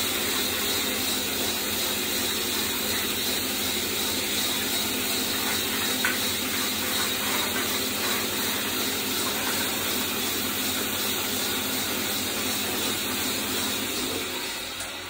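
Reliant 16-inch wood bandsaw with a 1½ hp single-phase motor running with no cut, a steady loud drone and hiss from the motor, wheels and blade, with a brief tick about six seconds in. Near the end it is switched off and the sound dies away as the saw coasts down.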